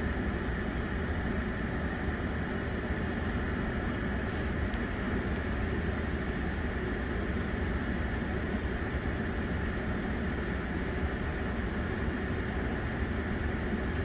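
Steady car cabin noise heard from inside a car in slow traffic: an even hum and rush of the engine and road, with no breaks or changes.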